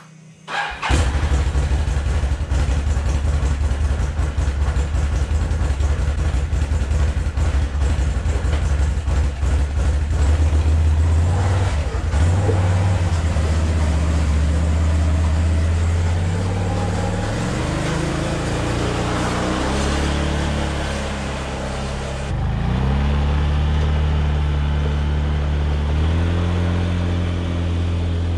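Can-Am Outlander ATV engine running under load, its pitch climbing and dropping several times, over a steady rushing noise. It starts abruptly about a second in.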